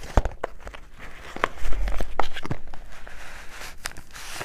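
Cardboard packaging box of a kitchen scale being opened and handled by hand: a series of sharp knocks and taps with a dull thump about one and a half seconds in, then rustling and scraping of the packaging near the end.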